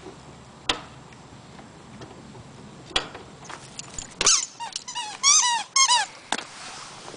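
Border Collie snapping her jaws in play: sharp single snaps about a second in and again at three seconds. These are followed by a quick loud run of short, high squeaks that bend in pitch.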